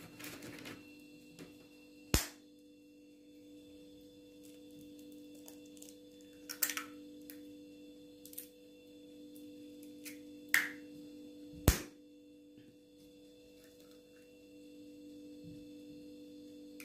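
A steady electrical hum runs under a few sharp knocks or clicks, like things being handled. The two loudest knocks come about two seconds in and near twelve seconds, with fainter ones in between.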